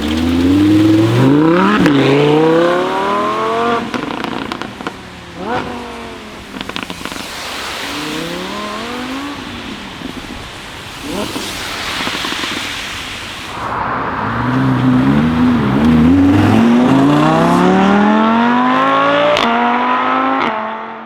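Lamborghini Huracán's V10 accelerating hard through the gears: the engine note climbs, drops back at each quick upshift and climbs again. The car goes twice, once at the start and once in a long loud run in the second half, with shorter revs and a few sharp pops in the quieter middle.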